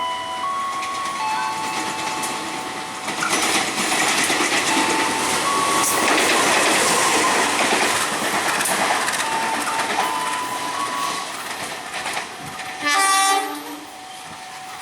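Train running through the station, wheels clattering over the rail joints, with a short horn blast near the end.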